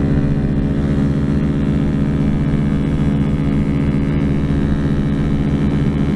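Motorcycle engine running steadily at cruising speed, its pitch holding level.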